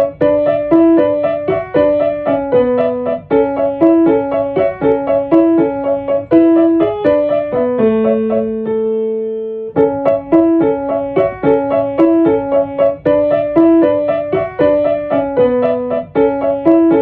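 Solo piano music: a quick, evenly repeating pattern of notes that stops on a held chord about eight seconds in, then picks up the pattern again near ten seconds.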